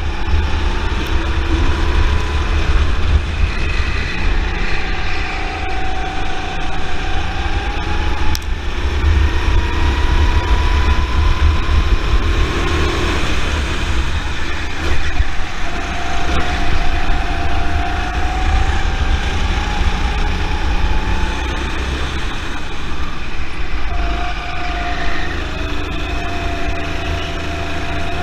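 Rental go-kart's Honda engine heard from on board the kart, its pitch rising and falling again and again as the kart accelerates and eases off through the corners, over a steady low rumble.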